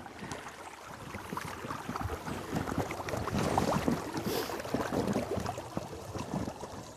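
Boots wading and splashing through a shallow river, irregular steps over running water, louder in the middle.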